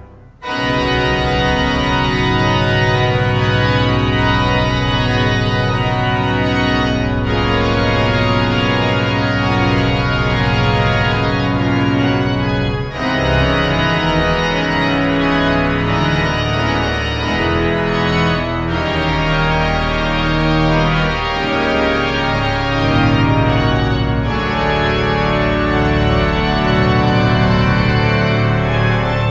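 Pipe organ playing loud, full sustained chords over deep low bass notes. It comes in after a brief gap right at the start, and the harmony changes every five or six seconds.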